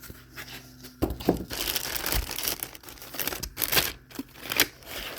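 Battery packaging being handled and pulled open: irregular crinkling and rustling of plastic and cardboard with sharp crackles, starting about a second in.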